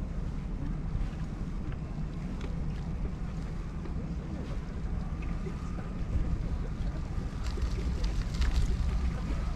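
Wind buffeting the microphone over a steady low rumble of riding along a concrete-slab path. From about halfway a faint steady whine comes in, and a few rattles and clicks sound near the end.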